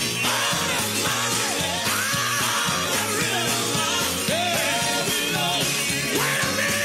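Music: a song with a lead voice singing over a steady bass line and beat.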